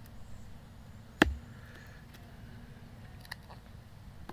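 A single sharp knock about a second in, with a fainter click near the end, over a low background.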